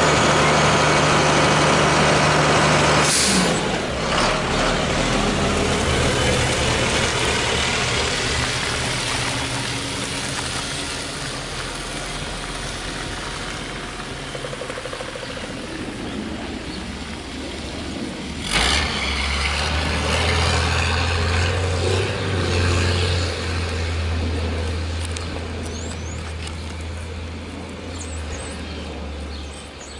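Lodal EVO refuse truck's engine running close by, broken by a short sharp burst about three seconds in; the truck then grows fainter as it moves off. Past halfway comes a second sharp burst, followed by a low steady rumble.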